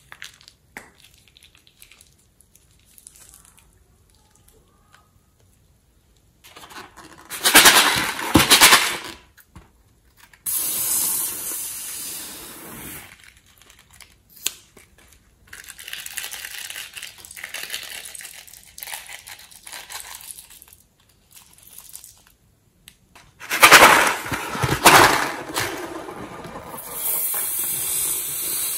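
Slime-filled balloons and a piping bag being cut open with scissors and squeezed, the slime squelching out in several separate bursts with airy hissing stretches. The two loudest bursts come about eight seconds in and again about twenty-four seconds in.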